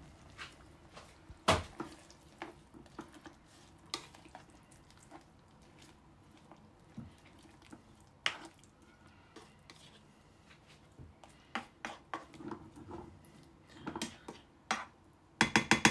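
Scattered knocks and clinks of a utensil against a cooking pot, with the loudest about a second and a half in and another around eight seconds. A quick run of clinks comes near the end.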